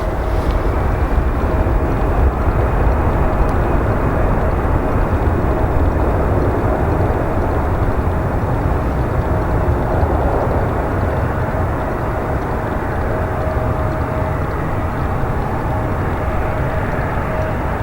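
Airbus A319's CFM56 turbofan engines running loud and steady: a broad jet rumble with a constant whine, easing slightly in the second half.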